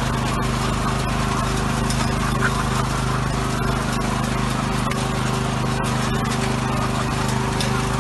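Small engine of a motorized powder blower running steadily at constant speed while blowing drying powder along the cage rows.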